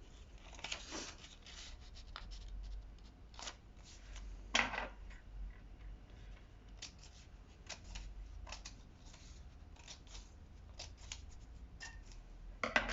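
Scissors snipping into folded paper, a series of short, separate cuts with paper handling between them, cutting slits that will become curly strips.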